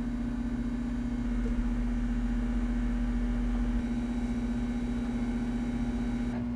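A steady hum: one held mid-low tone with a low rumble beneath it, unchanging throughout.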